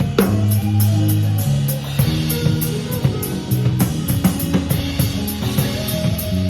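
Instrumental rock from a trio of electric guitar, bass guitar and drum kit playing together, the bass holding notes that change about once a second under a steady beat with regular cymbal strokes.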